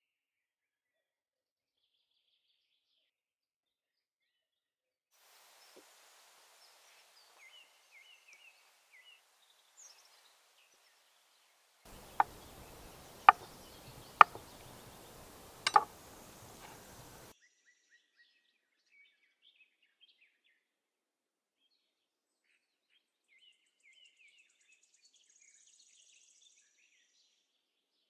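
Chef's knife cutting through tofu and striking a wooden cutting board: four sharp knocks over about four seconds, midway through. Faint birdsong chirps before and after.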